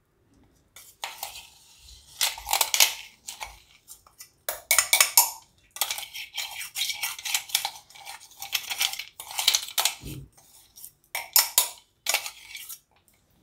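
Stainless-steel kitchen utensils clinking and scraping, a spoon against steel vessels, in a string of short bursts with brief pauses between them, and a soft thud about ten seconds in.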